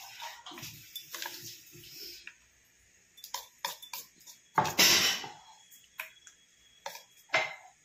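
Metal spoon scraping and clinking against an aluminium idli mould plate as rava idli batter is spooned into the cups. Soft scrapes come first, then separate clinks, with the loudest clatter a little before the middle.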